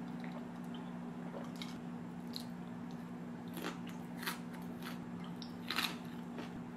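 A person chewing a mouthful of salad, with a handful of short crunches and clicks. A steady low hum runs underneath.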